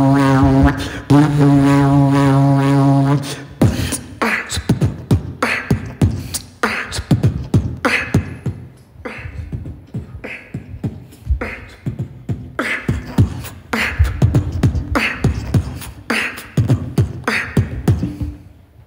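Beatboxing into a microphone: a held low vocal note with a short break about a second in, then from about three and a half seconds a steady beatboxed groove of kick and snare sounds, a snare about once a second, stopping at the very end. Every sound is made by voice alone.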